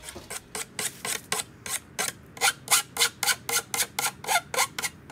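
A hand file is drawn back and forth along the edge of a Kömaalu block-off plate, making rasping strokes about four times a second that grow louder about halfway through.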